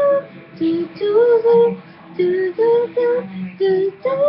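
A girl's voice singing short wordless notes, each held briefly with small pitch bends, about eight notes with short gaps between them.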